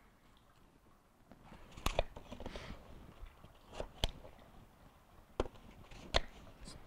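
Paring knife cutting through a crisp peeled apple on a bamboo cutting board: crunchy slicing with a few sharp taps as the blade meets the board.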